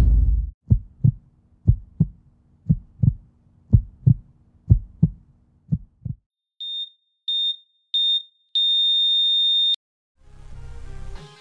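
Heartbeat sound effect: about ten double thumps roughly a second apart, weakening and stopping about six seconds in. A heart monitor then beeps three times and goes into a long flatline tone, signalling that the heart has stopped. Guitar music comes in near the end.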